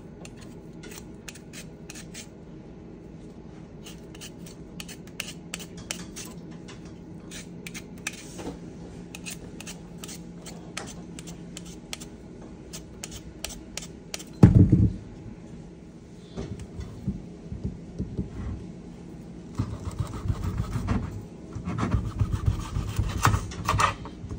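Vegetable peeler scraping the skin off a raw beetroot in many quick strokes. About 14 seconds in there is a single loud thump. Near the end comes a knife knocking through the beetroot onto a bamboo cutting board in short clusters.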